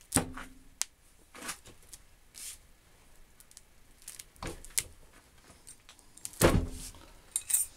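Metal clunks and clicks from a small hand-lever metal guillotine (bench shear) being worked and handled, with short metallic ringing. The loudest is a heavy clunk about six and a half seconds in, followed by a quick run of clicks near the end.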